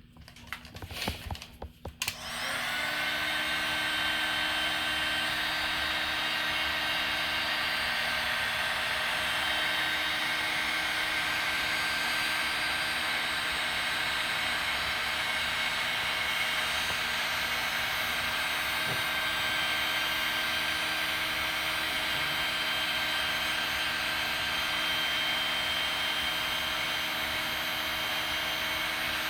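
A few handling clicks, then a heat gun switches on about two seconds in and runs steadily, blowing hot air with a constant fan whine to shrink heat-shrink tubing over twisted wire joints.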